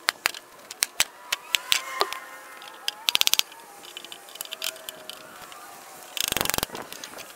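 Time-lapse sped-up sound of shed lumber being knocked apart: quick sharp hammer knocks on wood, with a short dense rattle about three seconds in and a longer one near the end.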